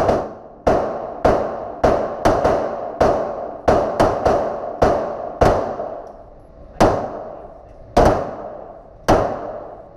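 A string of about fifteen 9mm pistol shots, each with a trailing echo. They come about two a second for the first half, then further apart near the end.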